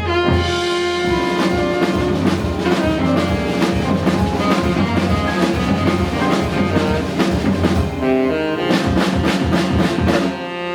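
Live jazz band with saxophone and drum kit playing the closing stretch of a tune: held horn notes over busy drums, with a quick run of drum hits near the end.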